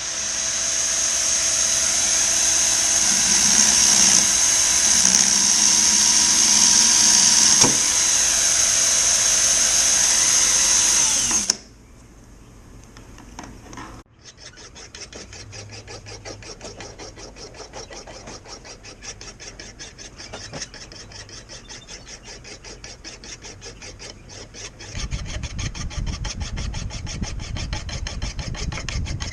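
A power tool runs steadily on the axe for about eleven seconds and then cuts off. After a short pause come quick, even rubbing strokes by hand, which get heavier near the end.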